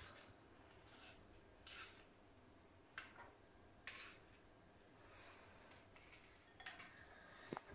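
Faint scrapes and a few sharp little clicks of a utensil working wet quinoa in a plastic mesh sieve over a ceramic bowl.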